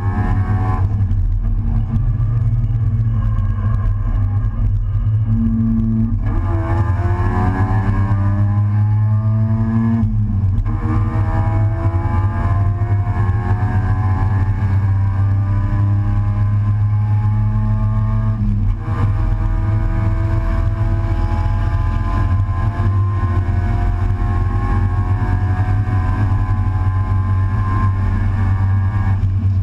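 Race car engine heard from inside the open cockpit at full throttle, its pitch climbing repeatedly as it pulls through the rev range. It is broken by sudden drops about a second in, around six and ten seconds, and once more near nineteen seconds, at gear changes or lifts for corners.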